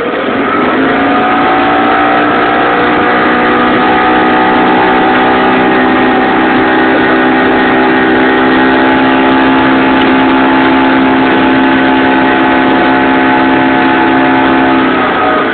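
6 hp Hangkai single-cylinder outboard motor running under way at a steady throttle, pushing a heavily loaded boat, over a steady rush of noise. Its pitch climbs and settles in the first second and drops near the end.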